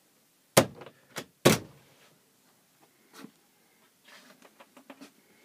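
Interior door being handled: two loud sharp knocks, one about half a second in and one about a second and a half in, with a smaller knock between them, then a fainter knock and a run of light clicks and rattles near the end.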